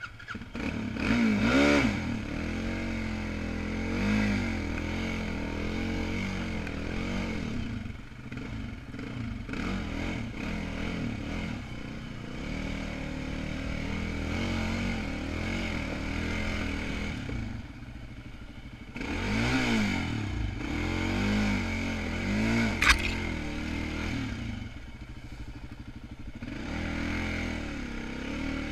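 ATV engine running under load on a rocky trail, revving up and falling back several times, with clattering and scraping over rock. A single sharp knock comes late on.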